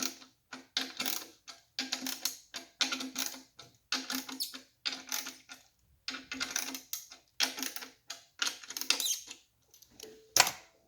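Banjo head tension lugs being tightened with a wrench: short bursts of metal clicking, about one a second, with a faint ring from the banjo head on each turn. A single louder knock comes near the end.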